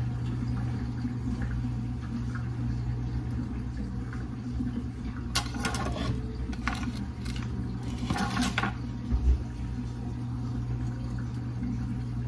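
Steady low hum with two short bursts of kitchenware clattering, about five and eight seconds in, and a low thump soon after.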